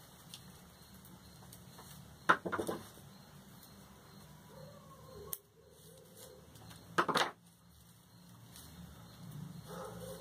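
A dog barks twice, once about two seconds in and again about seven seconds in, each a short single bark.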